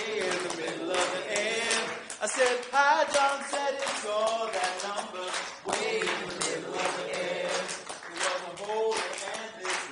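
A group of voices singing together over hand clapping, with the audience clapping a two-part rhythm throughout.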